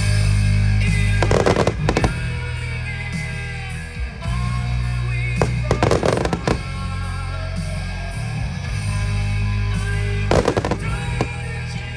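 Fireworks display set to loud music, with three clusters of sharp firework bangs and crackles about a second in, near the middle and near the end.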